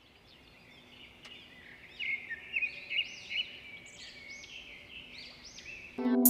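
Birds chirping in many short rising-and-falling calls, gradually growing louder; music comes in just before the end.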